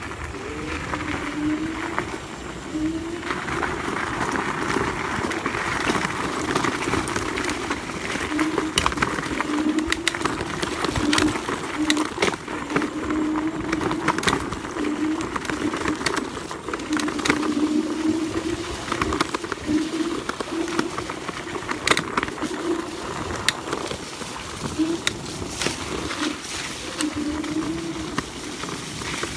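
Dualtron Ultra electric scooter's motors whining, the pitch wavering and cutting in and out as speed and throttle change, with sharp knocks and rattles as it rides over rough dirt trail.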